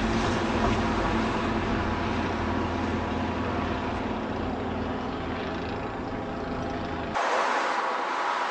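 A vehicle's steady low hum and rumble. A little after seven seconds the sound cuts abruptly to a brighter hiss with no low rumble.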